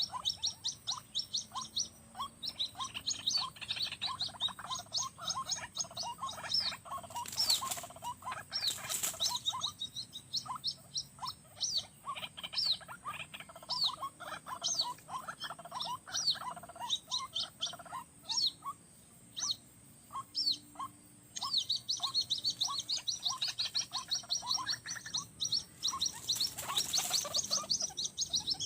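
White-breasted waterhen calls: a quick run of repeated notes, with a higher, faster chattering series of calls layered over them that pauses past the middle. Two short bursts of noise, about a quarter of the way in and near the end.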